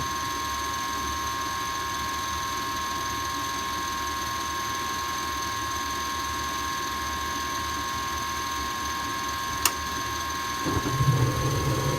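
Rheem gas furnace's draft inducer motor running steadily with a high whine, the sound of a worn inducer assembly nearing the end of its life. Near the end comes one sharp click, and about a second later a louder low hum and rush as the burners light.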